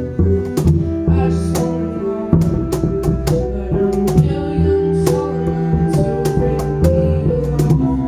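Instrumental stretch of a live hip-hop arrangement: a bowed cello line and bass notes over a steady cajón beat, with mallet-keyboard notes ringing above.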